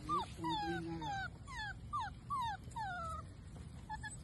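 Puppy whining: a run of about eight high whimpers, each falling in pitch, two to three a second, that stops after about three seconds, with a couple of short faint squeaks near the end.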